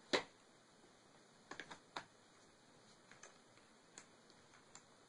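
Scattered light clicks and taps of a small screwdriver and a screw against a laptop's plastic base as the screw is driven back into the battery cover. The sharpest click comes right at the start, with a few more spaced irregularly after it.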